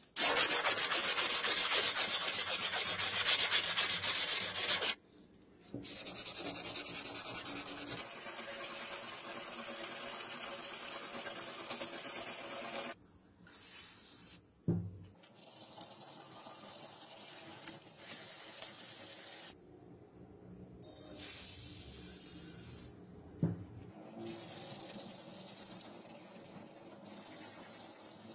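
Hand filing and sanding of rusty steel revolver parts: rapid back-and-forth scraping of abrasive on metal, loudest at the start, in several stretches broken by abrupt cuts, with a couple of short knocks.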